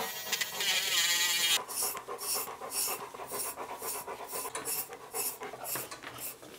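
Electric nail grinder whirring against a bullmastiff's nail, its pitch wavering, stopping after about a second and a half. Then a rhythmic rasping about three times a second, from a de-shedding brush drawn through the dog's coat while he pants.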